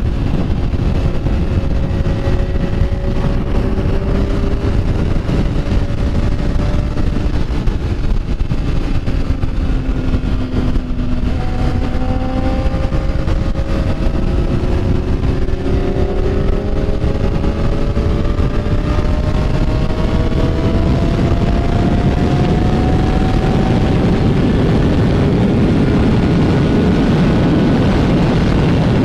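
Motorcycle engine running while riding, with heavy wind rush over the microphone; the engine note drops about ten seconds in, then climbs slowly for several seconds.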